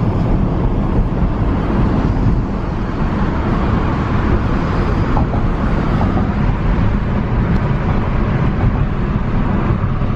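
Road noise inside a moving car: a steady low rumble of tyres and engine, with no distinct events.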